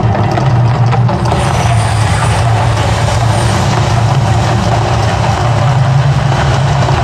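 Mirage Volcano show erupting: a loud, steady low rumble with a rushing hiss of gas-fed fire jets that swells about a second in.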